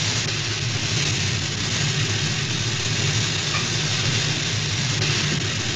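Steady engine drone, a film sound effect: a constant low hum under an even hiss, with no change in pitch or level.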